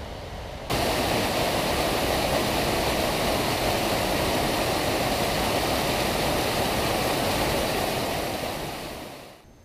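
Small mountain stream pouring down a rocky cascade: a steady, loud rush of falling water that cuts in suddenly about a second in and fades out near the end.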